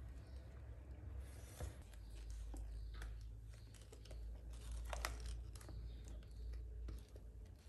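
Soft scraping and clicking of a silicone spatula working thick whipped ice cream mixture, spreading it in a metal loaf pan and scraping it out of a glass bowl, with a sharper click about five seconds in. A low steady hum runs underneath.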